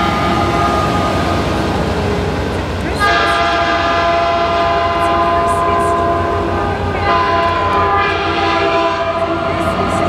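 Passenger train's multi-note locomotive air horn sounding in long blasts, a new blast starting about three seconds in and another about seven seconds in, over the low rumble of the passing train.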